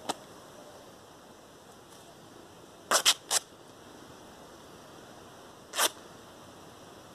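Denim cloth being torn by hand: a short rip at the start, three quick rips about three seconds in, and one more rip just before six seconds.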